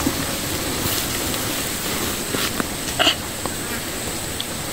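Insects buzzing steadily in the background, with a few small clicks and a brief rustle about three seconds in.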